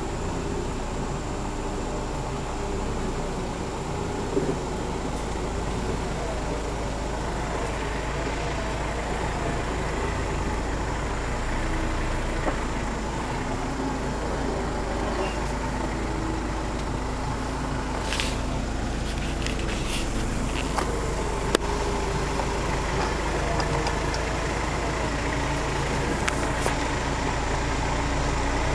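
A 4x4 vehicle's engine running on an off-road trail, its pitch rising and falling as the revs change, with a few short knocks and clatters, the clearest about 18 seconds in.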